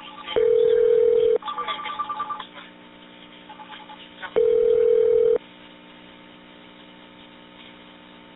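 Telephone line tones on a 911 dispatch recording: a steady low tone about a second long sounds twice, four seconds apart. A short run of rapid higher-pitched beeps comes between the two tones.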